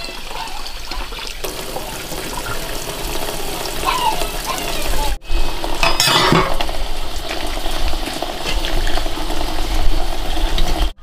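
Food frying in a pan with a steady sizzle, and stirring with small clinks of utensils against cookware. The sound breaks off abruptly for an instant about five seconds in, then carries on.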